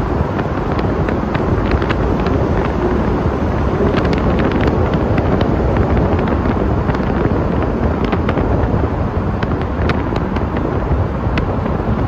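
Steady road and tyre noise of a car driving through a road tunnel, with many scattered sharp clicks and crackles over it.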